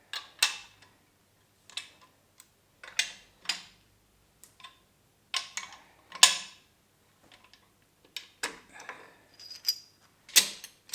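Scattered, irregular metallic clicks and knocks from hand tools and bolts as the main bearing cap bolts of a BMW S54 engine block are undone.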